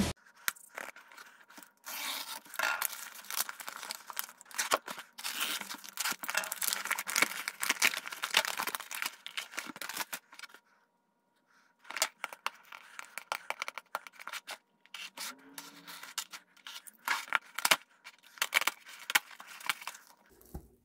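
Packing tape tearing and peeling off a cardboard box as it is unpacked, in quick rasping strips, with a short pause partway through; bubble wrap crinkles as it is lifted near the end.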